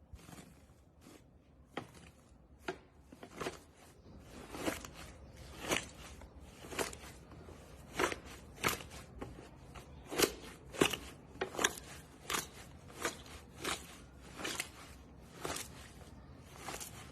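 Slime being pressed and squeezed by hand, giving a run of crisp crackling pops about one or two a second, fainter at first and louder from about four seconds in.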